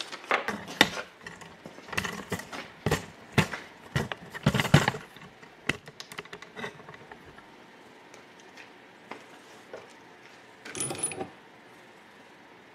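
Small metal hardware clicking and clinking as grease (zerk) fittings are handled and started into a steel upper control arm. A quick run of sharp metallic clicks for about five seconds, then scattered light ticks and a short rattle near the end.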